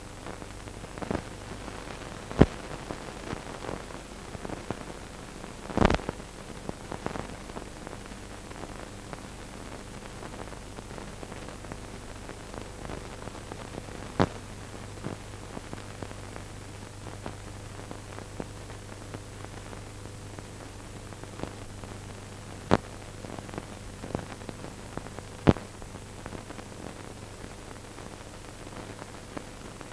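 Steady hiss and electrical hum with scattered sharp pops and crackles: the noise floor of an old film or tape soundtrack carrying no other sound.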